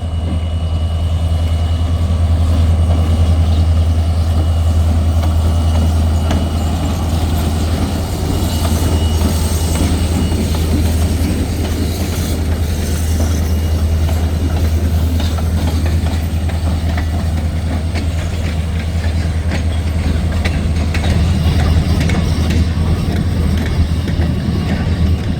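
Short freight train rolling past: a steady low rumble with the wheels clicking over the rail joints, the clicks growing more frequent after the first few seconds.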